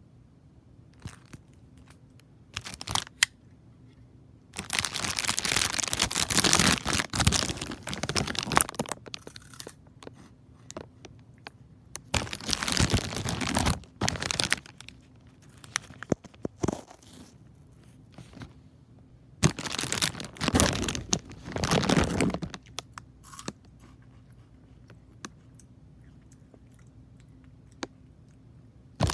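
Plastic chip bag crinkling and crumpling as it is handled, in three long bouts with scattered sharp crackles between.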